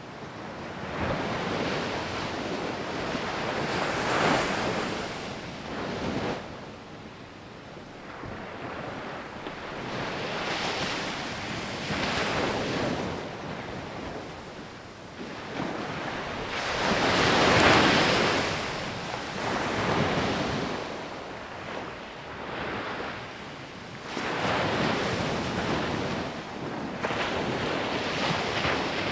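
Sea waves breaking and washing up a beach, swelling and fading every five to seven seconds, with the biggest break about two-thirds of the way through.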